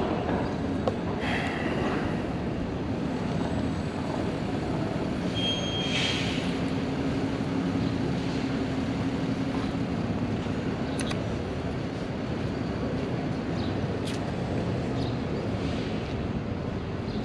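Steady low rumble of city vehicle traffic, with a hum that holds for a few seconds in the middle. A few sharp clicks in the second half come from plastic chess pieces being set down and the chess clock being pressed.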